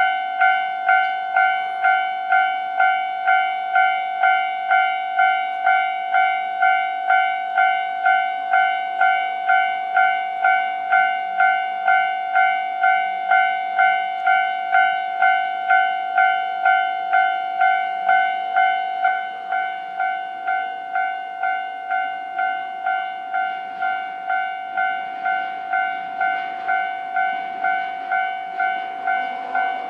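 Japanese level-crossing warning bell ringing in an even ding-ding rhythm, about one and a half strokes a second, a little quieter from about two-thirds of the way through. In the last few seconds the rumble of an approaching electric train rises beneath it.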